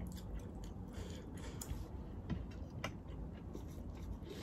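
Faint scattered clicks and small taps of a plastic serving ladle scooping rice from a ceramic platter, over low room hum.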